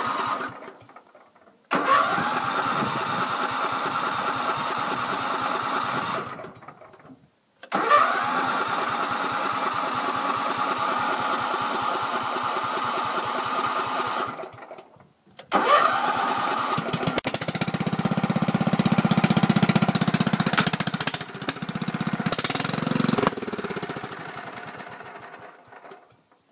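A 1996 mud tractor's engine cranked three times after sitting for a month, each try a few seconds of steady cranking. On the third and longest try it sputters and nearly catches, with a deeper running sound for a few seconds, then dies away.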